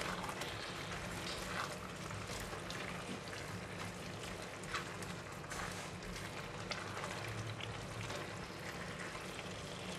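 Braised tofu skin and black fungus sizzling and bubbling in their gravy in a stainless steel pan over medium-high heat, while a spatula stirs them. The sound is a low, steady sizzle with scattered small pops and scrapes.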